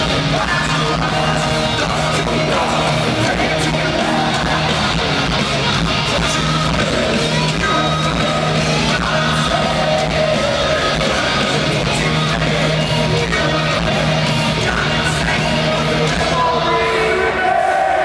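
Live rock band playing loud, heavy music with guitars, drums and a singer, heard from far back in a large arena. About 17 seconds in, the bass and drums drop away.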